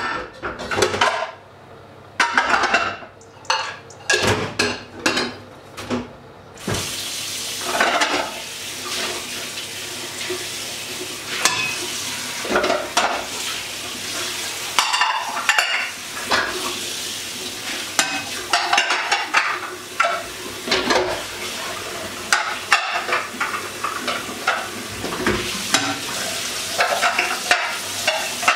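Pans and utensils clattering on a stovetop; about six seconds in a steady frying sizzle starts suddenly, with utensils stirring and clinking in the pan over it.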